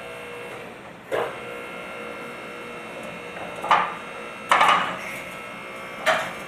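Four sharp clanks and knocks of steel parts on a four-post car lift, about 1, 3.7, 4.5 and 6 seconds in, the third lasting about half a second, over a steady faint hum.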